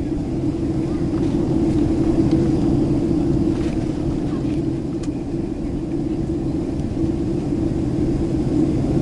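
Cabin noise of a Boeing 767-300 airliner in flight: the jet engines and rushing airflow make a low, steady rumble with an even drone.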